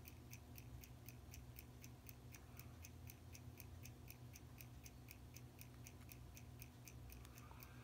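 Faint, quick, even ticking of a running mechanical timepiece over a low steady hum.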